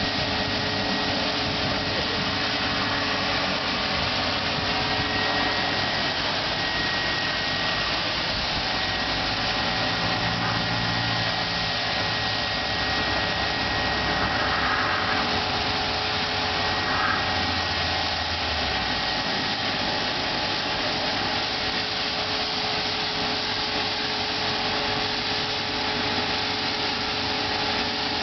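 Chevrolet S-10 Blazer engine running steadily with a continuous mechanical whir and a steady hum.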